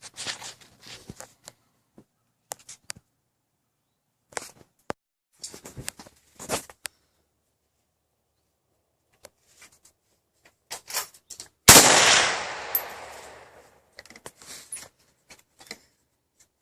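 A single loud rifle shot from a Vepr 7.62x39 semi-automatic rifle, about two-thirds of the way in, ringing out over roughly two seconds. Before and after it come scattered quieter clicks and knocks.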